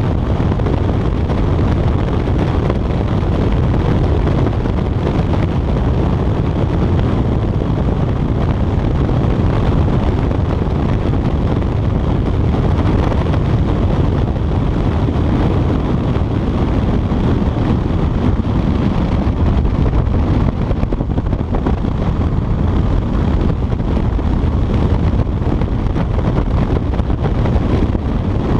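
Steady wind rush on a chest-mounted action camera at riding speed on a Honda CBR motorcycle, with the engine running beneath it.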